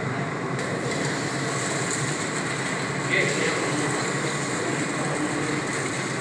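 Liquid poured from a metal pot splashing steadily into a stone pit, setting in about half a second in, over a continuous murmur of many voices in the shrine.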